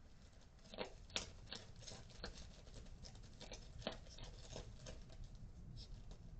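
A string of light, irregular clicks and taps, about ten in all, the sharpest about a second in and about four seconds in, over a faint low hum.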